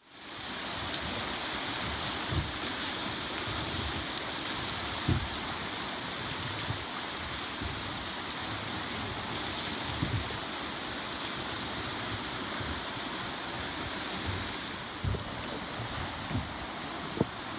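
Fast river current and rapids rushing around a small boat, a steady hiss of moving water, with a few brief low thumps.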